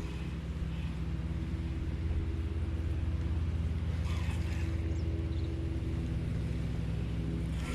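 A boat engine running steadily at a constant speed, making a low, even hum.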